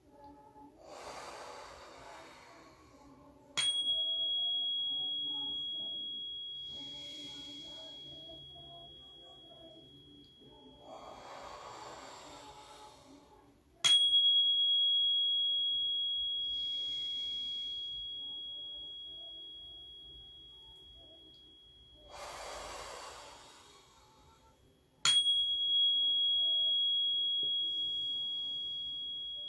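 Slow, deep breaths in and out, with three strikes of a small chime about ten seconds apart, one for each deep breath. Each strike rings with one clear high tone that fades slowly.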